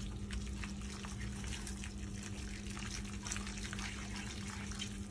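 Spaghetti in clam sauce sizzling and bubbling in a frying pan as it is stirred with a wooden spatula, a steady wet crackle of many small pops. A steady low hum runs underneath.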